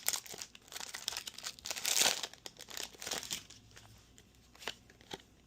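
Foil wrapper of a Pokémon trading-card booster pack crinkling and tearing as it is worked open by hand; the pack is hard to open. The loudest tear comes about two seconds in, and after about three and a half seconds only a few faint clicks remain.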